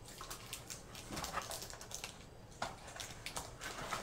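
Hands handling a cardboard box and its white moulded packaging insert: scattered scrapes, clicks and squeaky creaks as the tray and its contents are pulled at.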